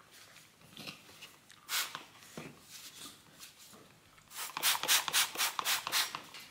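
Trigger spray bottle of citrus degreaser being squirted onto a bicycle fork's rusty outer tube. A few scattered sprays come first, then a quick run of about ten sprays in under two seconds near the end.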